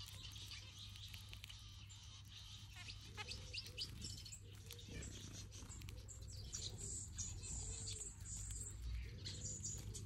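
Mixed aviary finches, zebra finches among them, chirping and twittering with many short high calls. From about three seconds in, a soft low call repeats every second or so under the chirps.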